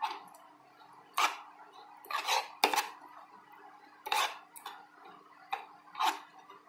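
A spoon scraping and clinking against the side of a bowl while stirring a thick mixture. It comes as about eight short, irregular strokes.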